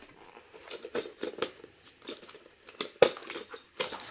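Small metal assembly hardware, among it an Allen key, clinking and clicking as it is handled, with some light crinkling.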